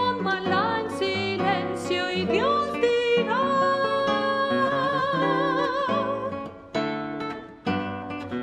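A woman's voice sings a long held note with vibrato, reached through short sliding phrases, over a classical guitar's plucked accompaniment. About two-thirds of the way through the voice stops and the guitar plays on alone in plucked chords.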